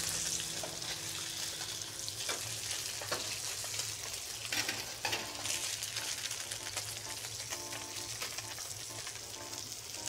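Sea bass fillets sizzling in oil in a hot skillet, a steady hiss, with a few short scrapes and clicks of a metal fish spatula against the pan as the fillets are lifted out.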